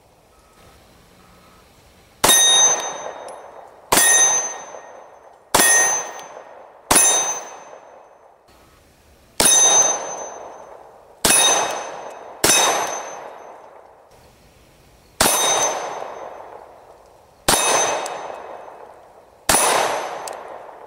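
Ten 9mm pistol shots from a Glock 17, each answered by the ring of a hanging steel target as the round strikes it. The shots come at uneven intervals of one to two and a half seconds, starting about two seconds in, and each ring dies away slowly.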